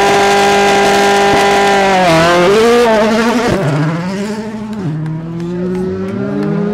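Rally car engine held at high revs, then the note drops and wavers through lifts and gear changes. The revs climb again near the end.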